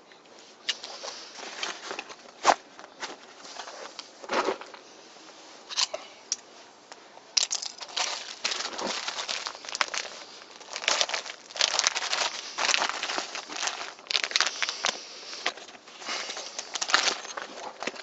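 Plastic packaging crinkling and gear rustling as items, among them a plastic-wrapped survival blanket, are packed into a fabric backpack pocket. It comes in irregular bursts, with a few sharp clicks in the first seconds.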